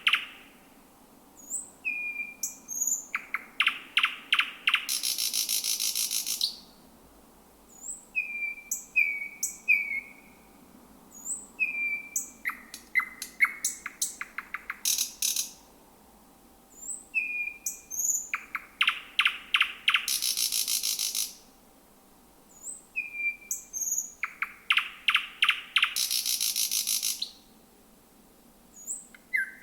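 Thrush nightingale singing: four repeated song phrases, each a run of sharp clicking notes and thin high whistles ending in a long dry rattle, with short pauses between phrases.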